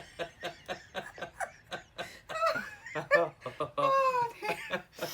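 Hard, helpless laughter: rapid breathy bursts of laughing, then drawn-out pitched laughs.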